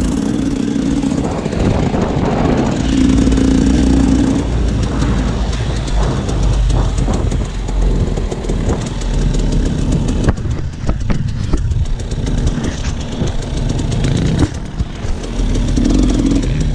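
Enduro dirt bike engine running and revving hard, with a run of sharp knocks and rattles about ten seconds in.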